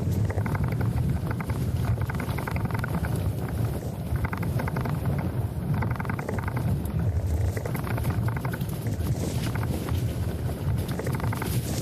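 Wind buffeting the microphone as a steady low rumble, with a rougher rushing noise that swells and fades every second or two.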